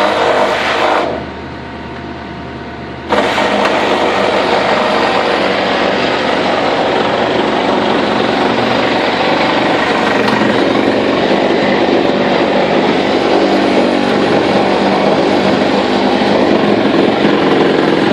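Reciprocating saw (Sawzall) cutting through a shelving board. A run of cutting stops about a second in, starts again about three seconds in and then goes on steadily. Under it, and heard on its own in the gap, the compact track loader's diesel engine runs with a steady low hum.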